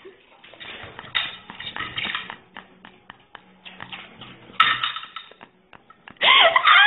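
Scattered clicks and light clatter of tableware, dishes and cutlery knocking during eating. Laughter breaks out near the end.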